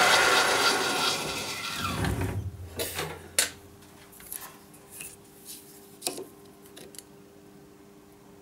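Small metal lathe running, then winding down to a stop about two to three seconds in. After that come a handful of light, separate metallic clicks and clinks as the turned part is handled and measured.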